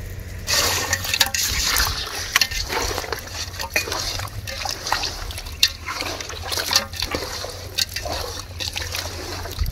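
Hand squelching and mixing raw quail pieces through a wet mint-coriander masala paste in a metal pot, with irregular wet slaps and sloshes. A stream of liquid is poured onto the mix near the start.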